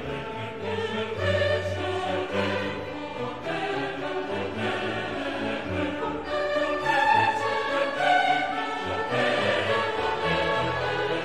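Background music with choral singing over an orchestral accompaniment.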